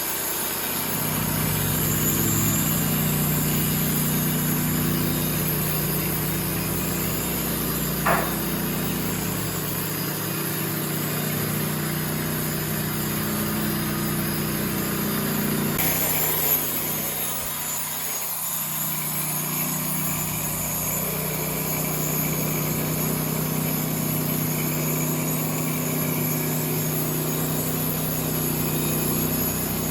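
Sawmill engine running steadily as the mill works through the oak, with a short sharp knock about eight seconds in and another about sixteen seconds in.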